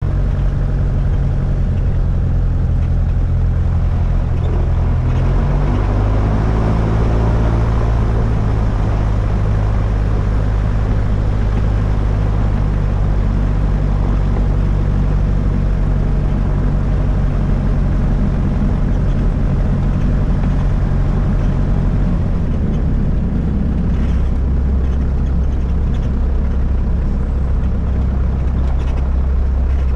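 Aircraft engine running loud and steady during a takeoff, its drone changing pitch about five seconds in and again about twenty-two seconds in.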